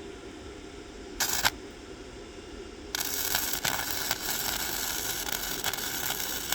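MIG welder arc: a brief strike about a second in, then from about three seconds in a steady crackling arc as a weld is run, over a steady background hum.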